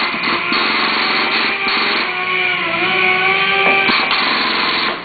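Hydraulic pump of a Car-o-Liner frame-straightening tower running under load as it pulls a car's door post, its pitch shifting as it works. It cuts off abruptly near the end.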